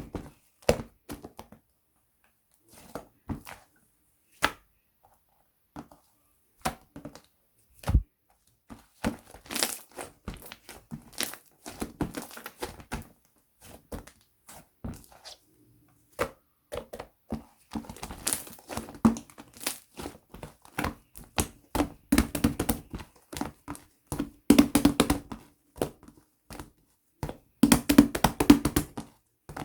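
Thick homemade slime being squeezed, stretched and poked by hand, making irregular sticky pops, crackles and squelches that come thicker and faster in the second half.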